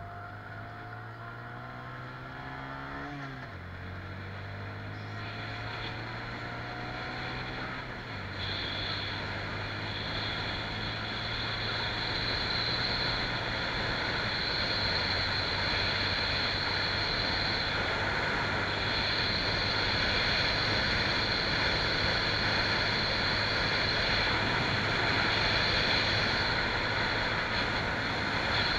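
Honda Grom's small single-cylinder engine accelerating hard through the gears: its pitch climbs and drops twice in the first eight seconds as it is upshifted. After that, wind and road rush builds steadily and grows louder than the engine as speed rises.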